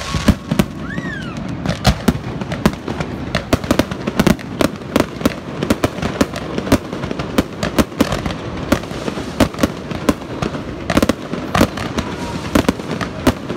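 Fireworks display: aerial shells and comets firing and bursting in a rapid, irregular barrage of bangs, with no let-up.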